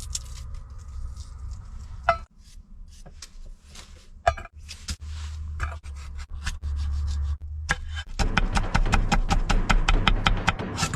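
Food-prep handling: a knife scraping and cutting a chicken leg, with scattered clinks and knocks over a low steady hum. Background music with a quick, even beat comes in about eight seconds in.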